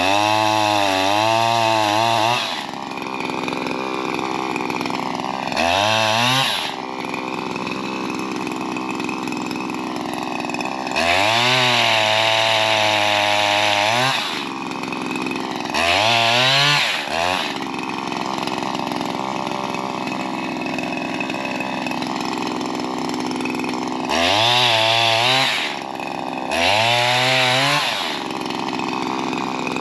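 Shindaiwa M230 multitool's small two-stroke engine driving a pole saw, revving up six times to cut limbs and dropping back to idle between cuts.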